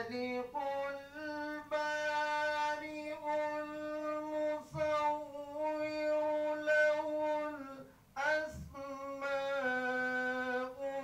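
A single unaccompanied voice singing a slow melody into a microphone in a hall, with long held notes that turn and bend at their ends. There is a short break about five seconds in and a pause for breath about eight seconds in.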